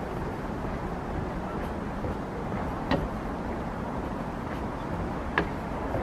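Steady low rumble of distant city traffic, with two sharp knocks, one about halfway through and one near the end.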